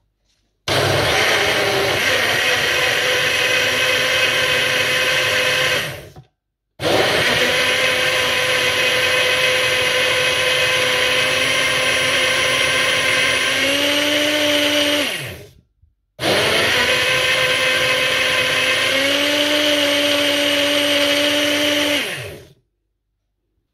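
Bright single-serve blender blending fruit and milk in three runs of about six, nine and six seconds, the motor whine falling away as it winds down after each. In the second and third runs the motor's pitch steps up near the end, as the load eases once the blend turns smooth.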